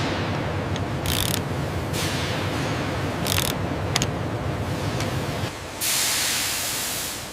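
Factory machinery with a steady low rumble and short bursts of hissing, like pneumatic or steam releases. After about five and a half seconds the rumble drops away and a longer hiss takes over, fading out toward the end.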